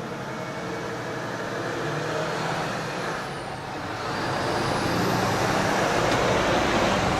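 Traffic on a busy road passing close by at speed: engines and tyres of cars and large trucks, growing louder about four seconds in.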